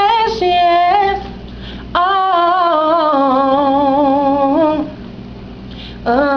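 A woman singing solo, holding long notes with vibrato: a short phrase, a pause, then a long held line about two seconds in, and a new phrase starting near the end.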